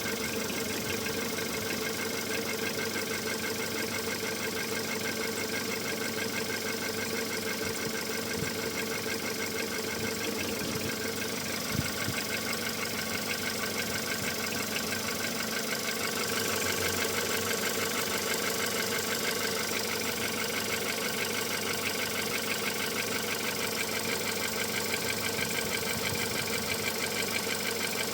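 Volkswagen CFNA 1.6-litre four-cylinder petrol engine idling steadily with a noise and knock whose cause the owner is trying to find.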